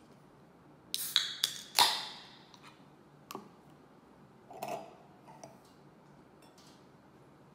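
Aluminium can of Asahi Super Dry beer being opened: two quick clicks as the ring-pull is lifted, then a sharp crack and a hiss of escaping carbonation that fades within about half a second. A single click and a few lighter knocks follow.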